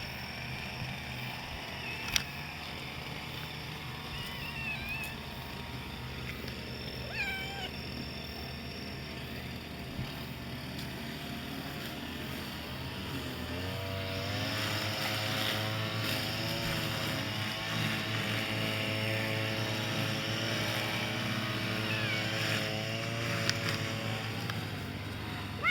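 A kitten meowing faintly a few times over a steady low hum. About halfway through, a steady engine-like drone joins in.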